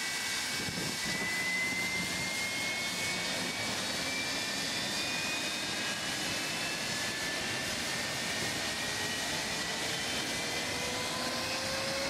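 Airliner turbofan jet engine starting on the ground for its first run after installation. Its whine slowly rises in pitch as it spools up, over a steady rushing noise.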